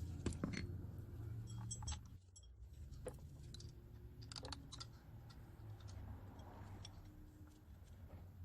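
Faint, irregular metallic clicks and taps of bolts and hand tools as the power steering pump's 12mm mounting bolts are fitted, some with a short ring.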